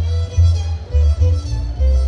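Mariachi ensemble playing live: a bowed violin carries the melody over strummed guitars and a deep, pulsing bass.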